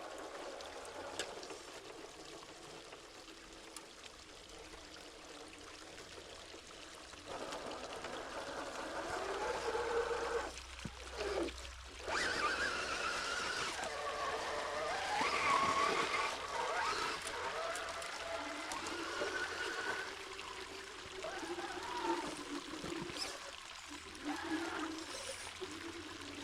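A small creek waterfall trickling and pouring steadily. Over it, the electric motor and gears of a Redcat Ascent RC rock crawler whine, rising and falling in pitch as it climbs; the whine is busiest in the middle.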